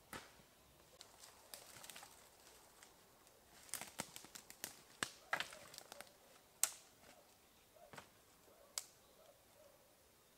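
Dry sticks and twigs cracking and snapping as they are handled among dead branches, with faint rustling in dry leaf litter. A quick run of sharp snaps comes about four to five seconds in, then single cracks later.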